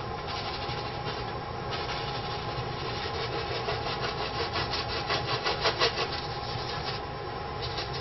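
A paintbrush scrubbing oil paint onto a stretched canvas in quick back-and-forth strokes, about five a second. It is loudest a little past the middle and stops about a second before the end, over a steady low hum.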